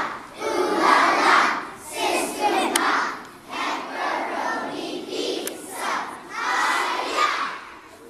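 A crowd of schoolchildren cheering and shouting, in repeated swells about once a second.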